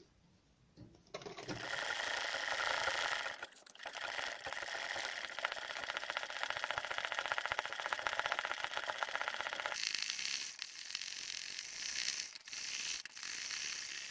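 Sewing machine stitching embroidery at a fast, even rate, starting about a second in, with a brief stop near four seconds and softer, stop-start running over the last few seconds.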